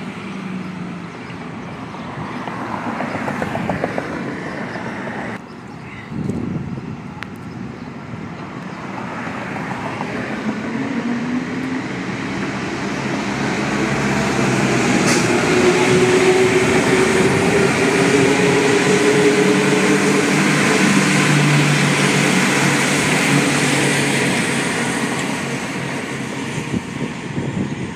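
Santiago Metro Line 1 rubber-tyred trains: one fades into the tunnel, then another comes out and passes close by, loudest about halfway through and fading near the end. Its traction motors whine in several tones that rise slowly in pitch as it gathers speed, with a brief high squeak about halfway.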